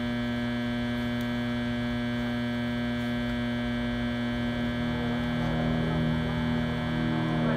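A generator running, heard as a steady hum made of many tones stacked together, which drowns the scene. The hum gets a little stronger about five seconds in.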